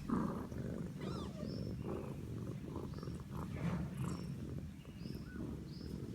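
Mother cat purring, a steady low rumble.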